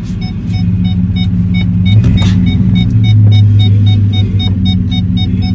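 Steady low rumble of a running vehicle, with a faint, fast, evenly repeating beep over it.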